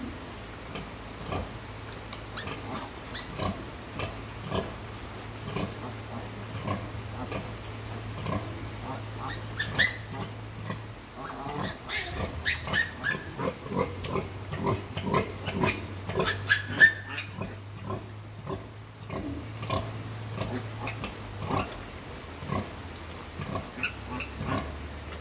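Nursing sow and her suckling piglets: repeated short grunts, with a few brief high squeals and a busier, louder stretch in the middle. A steady low hum runs underneath.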